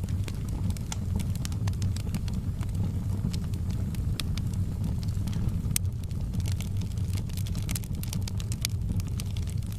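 Wood fire burning in a fireplace: a steady low rumble of flames with frequent sharp crackles and pops, one louder pop near the middle.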